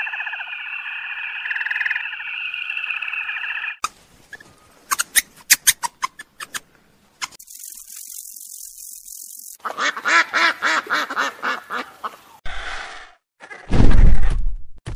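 A frog calling in one long pulsed trill for nearly four seconds. A string of sharp clicks and a high hiss follow, then Canada geese honking in a quick series. Near the end comes a loud, deep call, the loudest sound, from a harbour seal.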